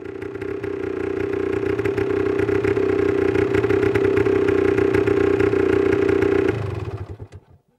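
Motocross bike engine running at steady high revs, fading in. Its note drops away about six and a half seconds in and the sound dies out.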